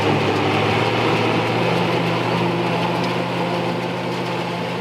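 International 5088 tractor's turbocharged six-cylinder diesel running steadily under load, powering a New Holland FP230 pull-type forage harvester that is chopping soybean straw and blowing it into a forage wagon. The engine's steady drone sits under a dense rushing noise from the chopper, and the whole gets gradually quieter.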